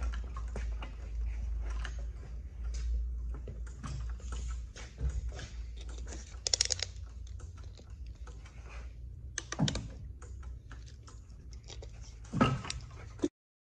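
Scattered light metal clicks and knocks from a heavy truck leaf spring pack and its lifting chain being handled and shifted into place, with a few sharper clanks about halfway and near the end, over a steady low hum.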